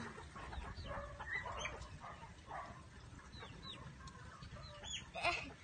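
Chickens clucking: several short, falling calls scattered through.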